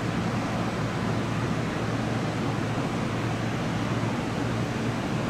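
Steady hum and hiss of a Seibu 001 series Laview electric express train standing idle at a station platform, with an even, unchanging noise throughout.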